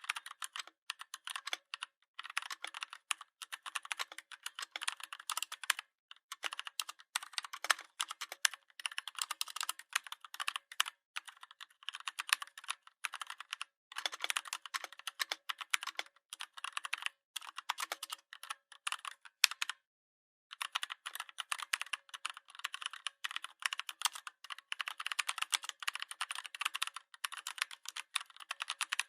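Typing on a computer keyboard: rapid, continuous key clicks in runs, broken by brief pauses, the longest about two-thirds of the way through.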